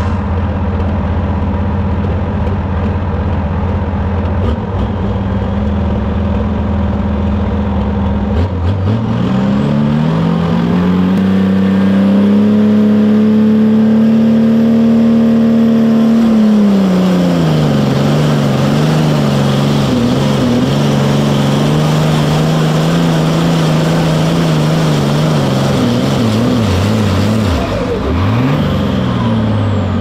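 Super Farm pulling tractor's diesel engine idling steadily, then revving up about nine seconds in and held at higher revs for several seconds before dropping back to a fast, wavering idle, with a brief dip and rise near the end.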